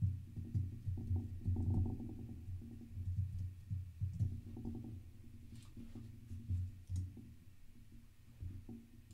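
Computer keyboard being typed on in irregular spurts, with a few sharper key or mouse clicks later on.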